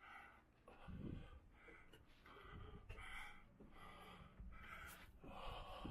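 Faint, repeated heavy breathing of a man near the microphone, winded from climbing steep tower steps.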